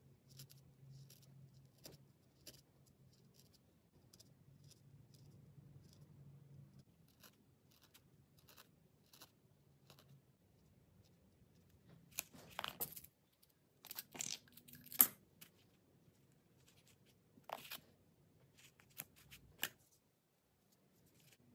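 Felting needle stabbing repeatedly into a wool felt piece, each poke a soft, crisp tick at about two a second. Several louder scratchy rustles of the wool come in the second half.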